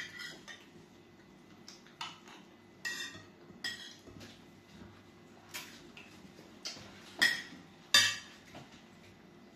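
Metal spoon and fork clinking and scraping against glass plates while eating, in scattered separate taps, with two louder knocks near the end.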